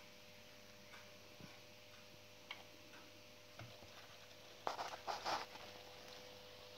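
Quiet room tone at a workbench: a faint steady electrical hum with a few soft ticks, and a brief burst of rustling clicks about five seconds in.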